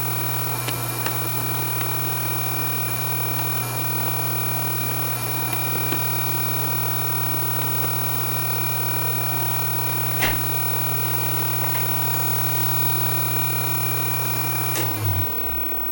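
Spindle motor of a CNC 3040 router running steadily with a whine, then switched off near the end and winding down with a falling pitch.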